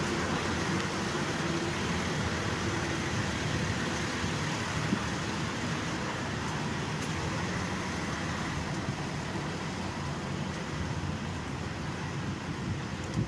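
Steady city street traffic: cars and other road vehicles running along a busy street, heard as a continuous wash of engine and tyre noise.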